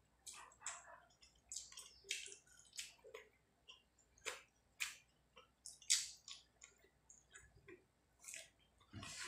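Close-up eating by hand: irregular wet clicks and squelches, two or three a second, from fingers mixing rice with fish curry on a plate and from mouth smacks while chewing.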